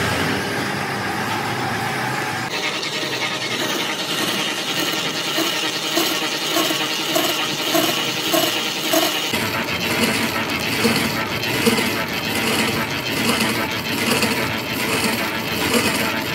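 Manual lathe running while a boring bar cuts the bore of a large cast gear blank, with a light metallic clink repeating at an even rhythm of a little more than once a second as the work turns.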